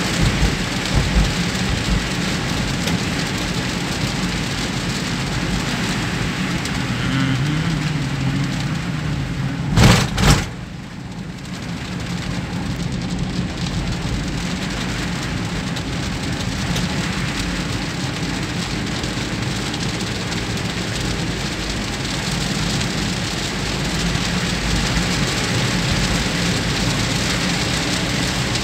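Heavy rain beating on a car's windscreen and roof, heard from inside the moving car, with a low engine and road hum beneath. A short, loud double knock about ten seconds in.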